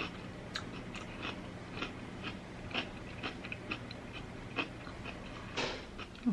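Close-up chewing and crunching of crisp cucumber in dressing: a string of short crunches, roughly two a second, with one longer, louder noisy sound about five and a half seconds in.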